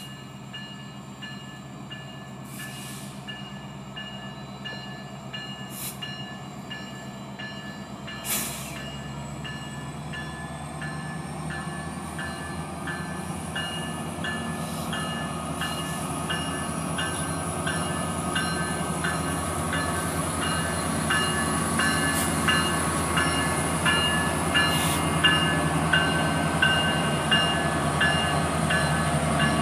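Union Pacific coal train pulling out behind its lead diesel locomotives, an SD70 and an SD90, the engines growing steadily louder as they approach and pass. A high whine rises in pitch through the middle of the pass, with a regular clicking and one sharp click about eight seconds in.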